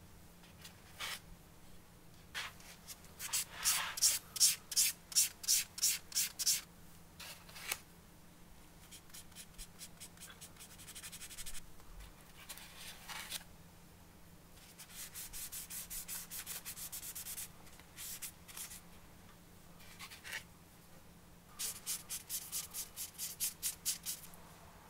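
Sanding pad rubbed back and forth over a small primed plastic model-car body part, in runs of quick strokes at about three a second, with a faster, steadier run in the middle.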